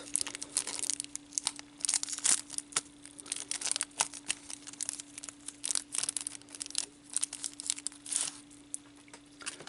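Small plastic packaging crinkling and tearing in irregular crackles as it is handled and pulled open, with a faint steady hum underneath.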